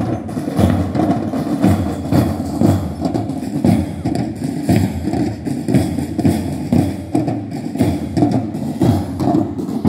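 Parade drums beating a steady marching rhythm, about one beat every three-quarters of a second.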